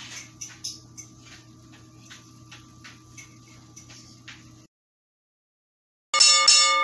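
Shrimp and garlic frying in oil in a pan, crackling and popping irregularly over a steady low hum. The sound cuts off about four and a half seconds in. After a short silence a loud, bright musical jingle starts near the end.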